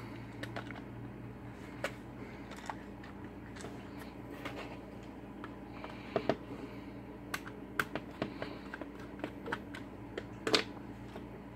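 Scattered light clicks and taps of a handheld digital multimeter's plastic case being handled and opened up, growing more frequent in the second half, with a louder click about ten and a half seconds in.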